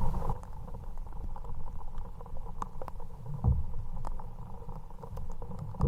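Low, steady rumble around a kayak on the water, with scattered light ticks and a single dull knock about three and a half seconds in.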